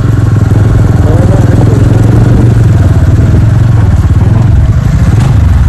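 An engine running steadily, loud and close, with a low, fast-pulsing hum.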